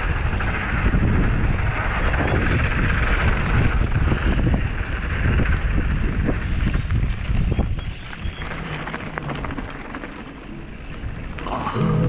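Wind rushing over the camera microphone and mountain bike tyres rumbling on a dirt and gravel trail at speed, with a stream of small clicks and knocks from the bike. It goes quieter for a few seconds near the end as the bike slows on the flat.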